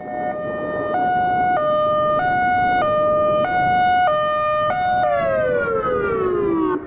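Electronic outdoor warning siren sounding a hi-lo alert tone, two pitches alternating about every 0.6 seconds, then sliding down in pitch near the end. It is the attention tone that opens a test message of the emergency warning system.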